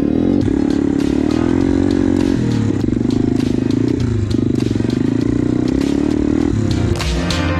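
Small dirt bike engine running under way, its pitch rising and falling several times as the throttle changes, with frequent rattling knocks from the bike over the rutted snow.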